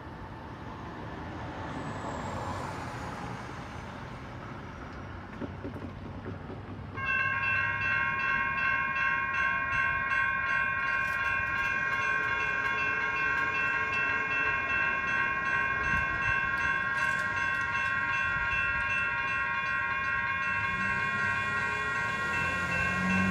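Railroad crossing electronic bells (General Signals Type-1 and Type-2 e-bells) start ringing together about seven seconds in, a rapid, steady, high dinging that signals the crossing has activated for an approaching train. Before that, street traffic passes. A low train horn comes in near the end.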